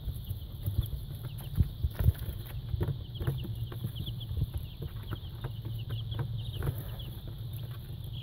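Baby chicks peeping: many short, high chirps overlapping, with scattered soft clicks and knocks.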